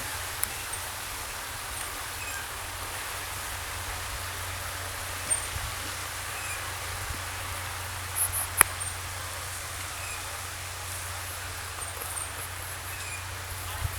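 Steady outdoor background noise with a low hum underneath, broken by a few sharp clicks and faint high chirps.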